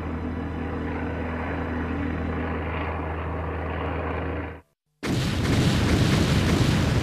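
A steady low droning hum with an engine-like pitch that cuts off abruptly about four and a half seconds in. After a moment of silence, a loud, dense rumbling noise begins.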